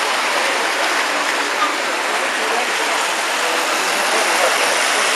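Steady, even exhibition-hall ambience: a crowd's indistinct chatter mixed with the running noise of three-rail model trains on the layout.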